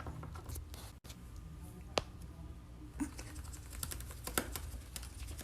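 Faint light clicks and taps: a single click about two seconds in, another about a second later, then a quick run of several near the end.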